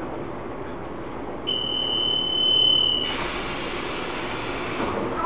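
Door-closing warning buzzer on a Taiwan Railways EMU800 electric multiple unit standing at a platform: one steady high beep, lasting about a second and a half, starts about a second and a half in and signals that the doors are about to shut. A louder rush of noise follows as it ends, over the train's steady background hum.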